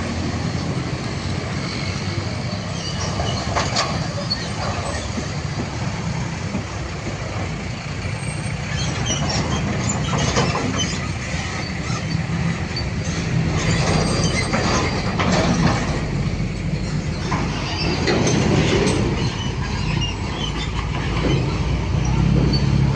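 A train passing close by over a level crossing: a steady low rumble of wheels and rolling stock, with many sharp clicks and rattles as the wheels run over the rails.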